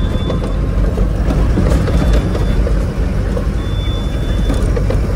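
Loaded goods truck being driven: steady diesel engine and road rumble, with scattered clicks and rattles.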